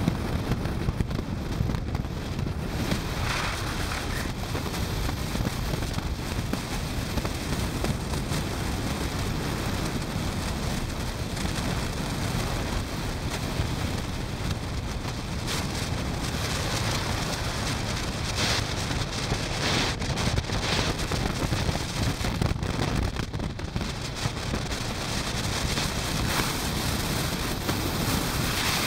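Steady wind rush buffeting the microphone of a camera on a moving motorcycle, mixed with road and engine noise.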